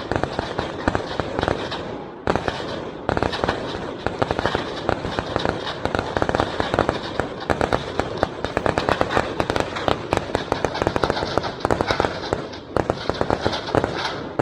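Gunfire from army training: rapid shots crowding one after another in near-continuous volleys, with a short lull about two seconds in.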